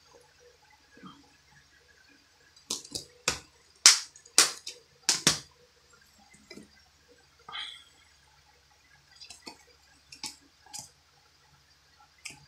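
Plastic Blu-ray cases being handled: a quick run of sharp plastic clacks about three to five seconds in as a case is snapped shut and set back among the others, then a few lighter scattered clicks.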